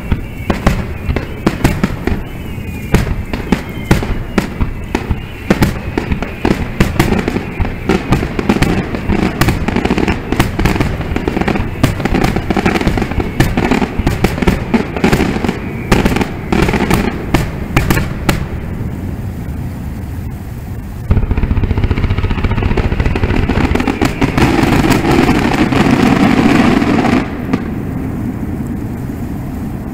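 Fireworks display: aerial shells bursting with many sharp bangs and rapid crackling. About two-thirds of the way through, a louder, steady rush of noise lasts about six seconds and then eases.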